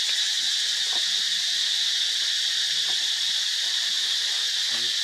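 A steady, high-pitched drone of insects calling in chorus.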